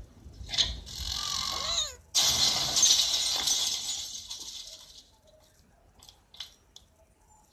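Cartoon sound effects: a cry with sliding pitch about a second in, then a loud hiss for about two seconds that fades away, and a few faint clicks near the end.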